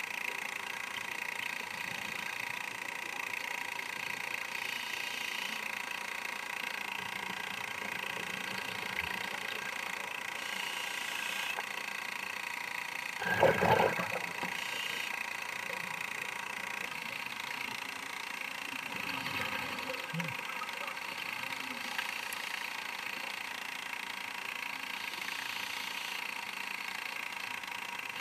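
Steady mechanical whine with a few fixed high tones, picked up inside a sealed underwater camera housing, the camera's own running noise. About halfway through comes one brief, louder burst.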